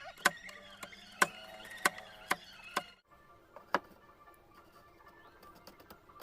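A series of sharp knocks, about six in under four seconds: a woodworking tool striking wood while a joint is worked.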